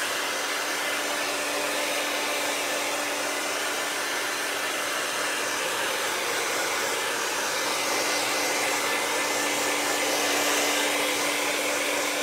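Handheld hair dryer running steadily and loudly: a continuous rush of blown air over a steady motor hum. It is drying freshly applied chalk ink on a fabric pillow cover before heat-setting.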